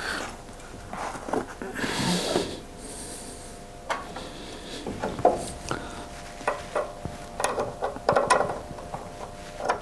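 Scattered metal clicks, knocks and scraping as the rear hub upright is worked into place over the new drive shaft and its top bolts are fitted by hand. A faint steady hum runs underneath.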